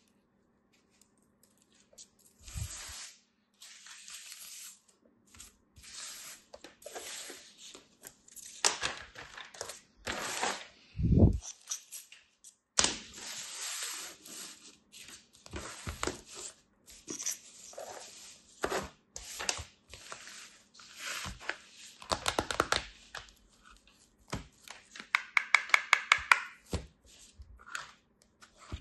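Kinetic sand being pressed and scraped into plastic sand molds and the molds handled and lifted off: a string of soft crunching, rustling strokes with light taps on plastic. There is a dull thump about a third of the way in, and a quick, even run of sharp taps near the end.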